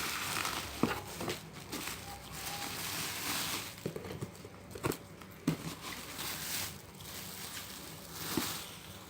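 Packaging being handled and opened: crinkling and rustling of wrapping, with scattered small knocks and clicks.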